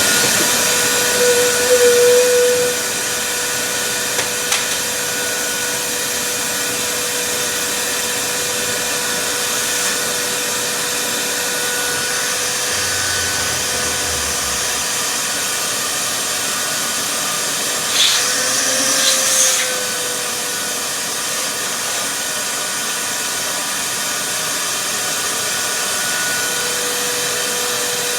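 Vacuum cleaner running steadily, a continuous rushing air noise with a whining hum. The sound surges briefly with a shift in pitch about two seconds in and again about two-thirds of the way through.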